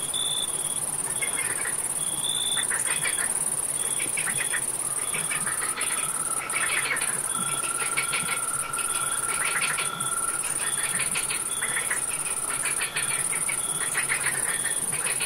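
Night chorus of crickets and frogs: a steady high-pitched cricket trill throughout, short chirps repeating about once a second, and bursts of rapid rasping frog calls. A long even trill is held from about five seconds in until near the end.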